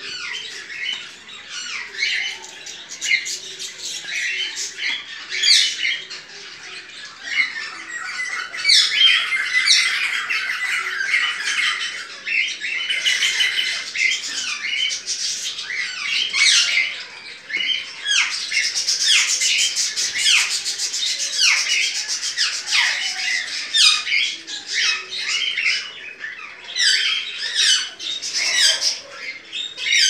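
Chopi blackbirds (graúnas) calling and singing without a break: a dense run of loud, varied whistles and quick sweeping chattering notes.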